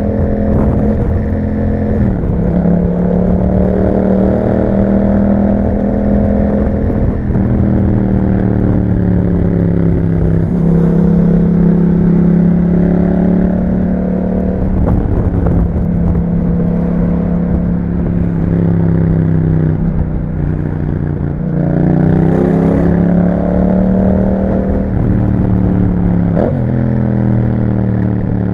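Yamaha MT-07's 689 cc parallel-twin engine through an Akrapovic exhaust, running under way. Its note rises and falls with the throttle, with sudden drops in pitch at gear changes about every few seconds and a rising pull after about two seconds and again near twenty-two seconds.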